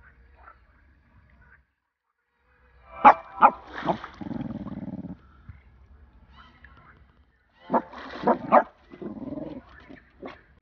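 A dog barking: two quick sharp barks about three seconds in, followed by a longer drawn-out whine-like sound, then another cluster of barks and whining sounds about eight seconds in.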